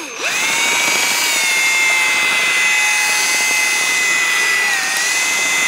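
Electric drill spinning up and running steadily, its twist bit cutting into the head of a stripped hex bolt to deepen the cone for a screw extractor. The motor's whine dips briefly in pitch about five seconds in.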